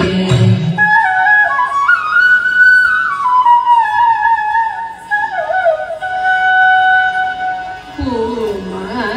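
Flute interlude in a Thiruvathira dance song: a single melodic line of stepped and gliding notes takes over from the singing about a second in. Singing comes back near the end.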